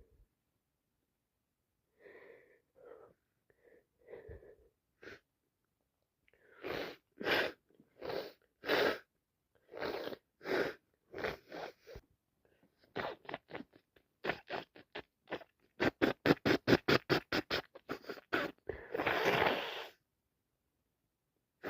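A woman with a cold sniffling and sneezing, unable to stop: a few faint sniffs, then a string of sharp bursts about half a second apart, then a fast run of short breaths ending in one longer, noisy burst near the end.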